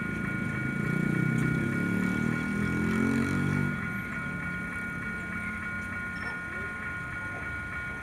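EMD GT22 diesel-electric locomotive's two-stroke diesel engine running as the train approaches. It is loudest in the first half and drops off sharply a little past halfway, leaving a lower steady running sound, with a faint high steady whine throughout.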